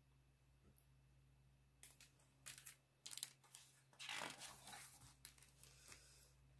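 Paper pages of a picture book rustling as they are turned, in a run of short crinkling bursts that are loudest a little past the middle.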